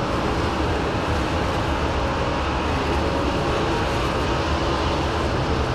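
Winged sprint car V8 racing engines running at speed on the dirt track, a steady dense engine noise with no let-up.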